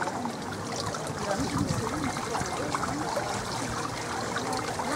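Steady trickling of running water, with faint voices in the background.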